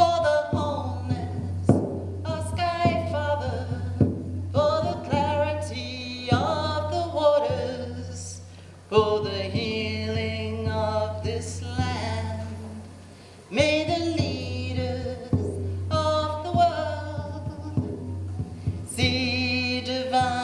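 Unaccompanied singing of a prayer song, in long phrases with wavering held notes and short breaks for breath about nine and thirteen and a half seconds in. A steady low hum runs underneath.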